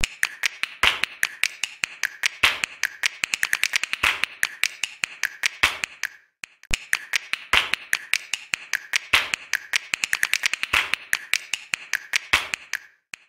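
Rapid, rhythmic clicking, many clicks a second with a louder click about every second and a half, in two runs with a short break in the middle.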